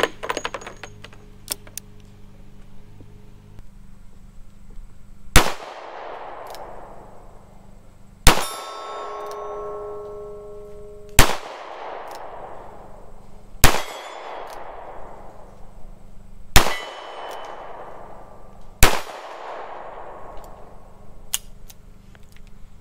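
Smith & Wesson pre-Model 10 snub-nose revolver, made in 1945, fired six times at a slow, even pace, one shot every two to three seconds, each shot trailing off in an echo.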